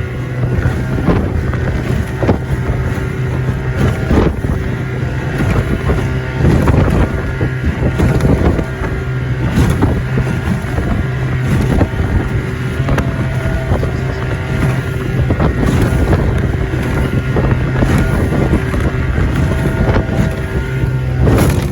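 Outboard motor of a 14-foot Livingston boat running steadily under way through rough water. Irregular knocks and splashes come every second or two as the hull hits the waves, with wind buffeting the microphone.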